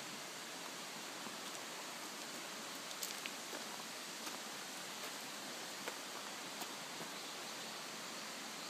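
Steady, even outdoor rushing hiss, with a few faint clicks about three seconds in and again around six seconds in.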